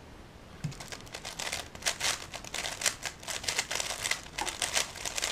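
3x3 speedcube being turned at full speed during a solve: a rapid, uneven stream of plastic clicks and clacks that starts about a second in.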